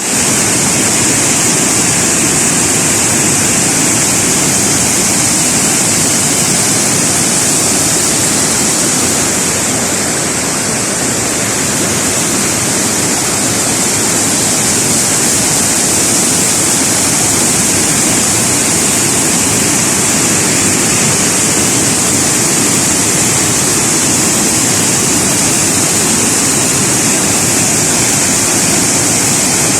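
The Agua Azul cascades: water falling and rushing in a loud, steady wash, dipping slightly about ten seconds in.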